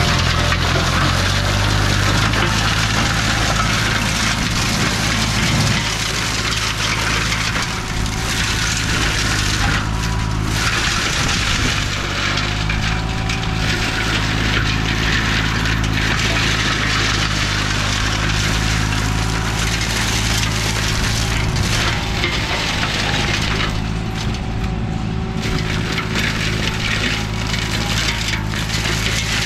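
Green Climber LV600 remote-controlled slope mower running steadily under load, its flail mulcher head shredding olive tree branches: a dense crackling, splintering noise over the engine's steady hum. The shredding noise thins out briefly twice, about a third of the way in and again near the end.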